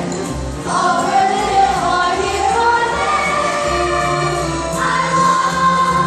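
A children's cast singing together as a group over musical accompaniment, ending on a long held note.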